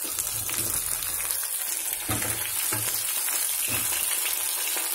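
Capsicum pieces sizzling in hot oil in a nonstick kadai, with a spatula scraping and scooping through them a few times as they are lifted out half-cooked.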